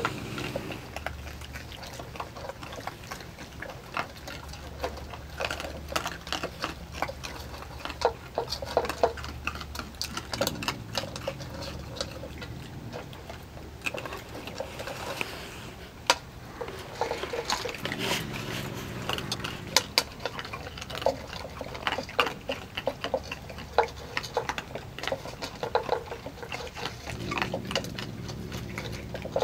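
Raccoons crunching dry cat food kibble from a bowl: rapid, irregular crisp crunches and clicks that come in denser spells, over a low steady hum.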